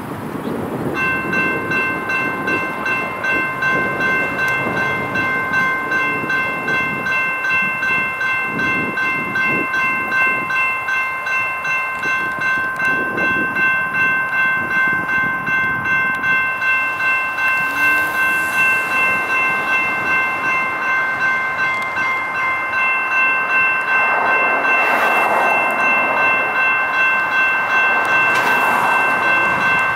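General Signals Type 2 electronic crossing bell starts ringing about a second in, an even electronic ding at about two strikes a second. It is the grade crossing warning of an approaching train. A broad rushing sound rises over it near the end.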